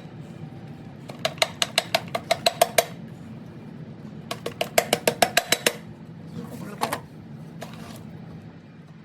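Metal hand-tool work on a small engine: two runs of quick metallic clicks with a slight ring, about seven a second and each lasting a second and a half, then a few softer knocks.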